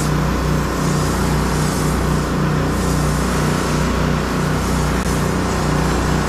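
Pressure washer running steadily: an engine-driven pump hum under the hiss of the high-pressure jet spraying onto wooden deck boards.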